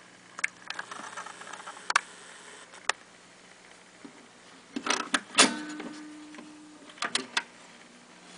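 Knocks, clicks and scrapes from a hand handling the tone arm and electric pickup of a Philco radio-phonograph, over a steady low hum. A cluster of knocks about five seconds in is the loudest, and the last of them leaves a brief ringing tone.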